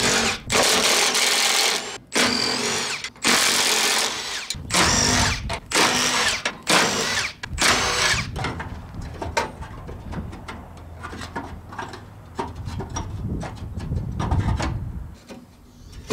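Milwaukee cordless impact driver running in about seven short bursts over the first half, spinning out half-inch bolts from a car's front-end sheet metal. Over the second half it stops, leaving quieter scattered clicks and knocks of the bolts and parts being handled.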